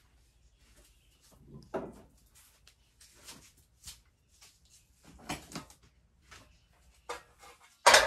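Mistral MCFLA 48 ceiling fan coasting down after being switched off, its run-down very quiet. Faint scattered chirps and small knocks sound over it, and a sudden sharp clatter comes just before the end.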